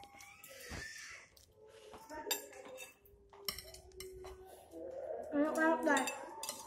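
Metal spoons and forks clinking and scraping on plates during eating, in scattered short clinks. About five seconds in, a brief voice sound is the loudest moment.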